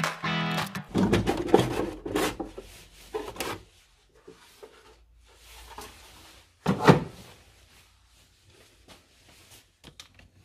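Quick run of clicks, taps and scrapes as a long Phillips screwdriver works the screws out of a plastic air filter housing, followed by scattered knocks and rubs of the plastic parts, with one loud knock about seven seconds in.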